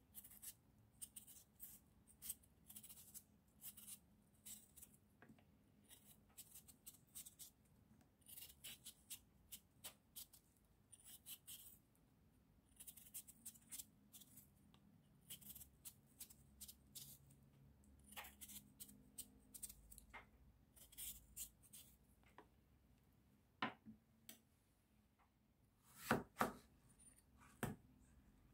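Faint, close-up scrapes of a knife blade shaving the peel off a raw potato in short repeated strokes. Near the end come a few louder knocks as the knife cuts through the potato onto a plastic cutting board.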